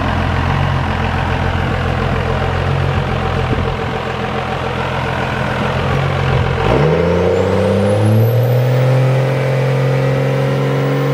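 Dodge Ram's Cummins turbo-diesel idling, then about two-thirds of the way in revving up sharply and holding high revs against the brake for a burnout. A high whistle rises as the turbo spools up.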